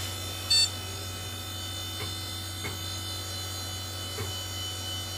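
Open desktop PC running, with a steady hum and high whine from its cooling fans and spinning hard disk drive. The hard disk is noticeably loud. A single short, loud beep comes about half a second in, and a few faint clicks follow.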